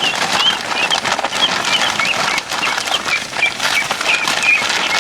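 Young ducks peeping: a steady run of short high chirps, two or three a second, over rustling and scuffling.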